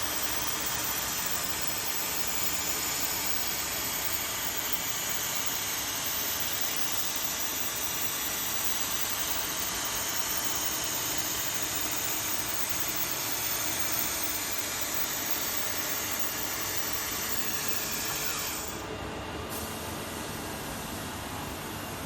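CNC milling machine running as it mills, a steady hissing machine noise. About three-quarters of the way through, the higher hiss drops away and the machine runs on a little quieter.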